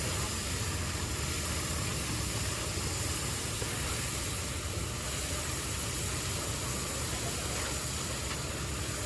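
An engine running steadily at one speed, with a low hum and no changes in speed.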